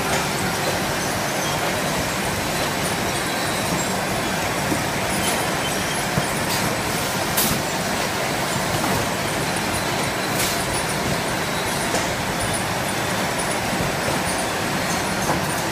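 Automatic case-packing machine running, boxing cans into cardboard cases: a steady mechanical din of motors and conveyors, with a few sharp clicks from its moving parts.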